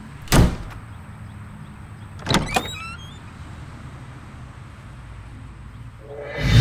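Wardrobe door being handled: a sharp clack about half a second in, then about two seconds later another clack with a short squeak. Music swells in near the end.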